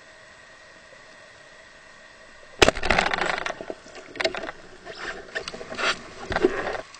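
A speargun fires underwater with a sudden sharp crack about two and a half seconds in, followed by several bursts of mechanical clatter and rattling that stop shortly before the end.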